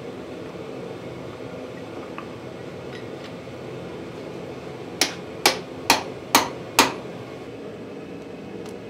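Five sharp metal-on-steel hammer taps, about two a second, seating a tooling block onto a power hammer's ram, over a steady machine hum.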